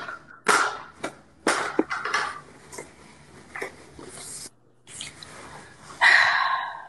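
Short rustling and tearing noises, a few separate ones and then a longer rustle near the end: toilet paper being pulled from a roll and handled.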